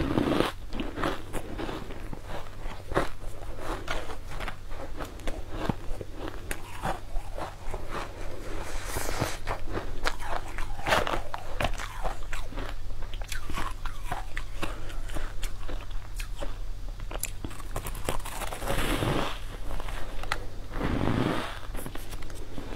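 Close-up biting and chewing of crunchy purple cubes: a run of crisp crunches and clicks, with several louder bouts of crunching, over a steady low hum.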